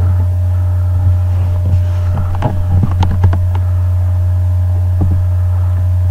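A loud, steady low hum, with a few short knocks and clicks in the middle.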